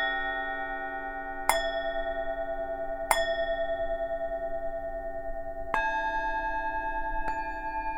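Tibetan singing bowls of different pitches struck one after another, five strikes about one and a half to two and a half seconds apart. Each rings on long and overlaps the next, with a slow wavering beat in the tones.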